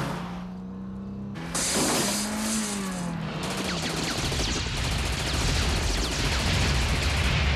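Action-film soundtrack: a car engine revving, its pitch rising and falling. About four seconds in, it gives way to a loud, dense rapid crackle of gunfire over a low rumble.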